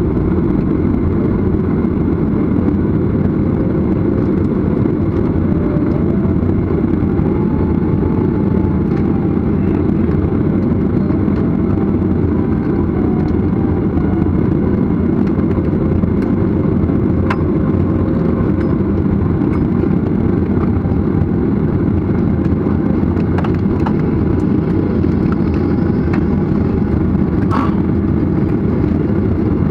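Cabin noise of a jet airliner taxiing: a steady low rumble from the engines at taxi power, with faint wavering tones above it and a few light clicks.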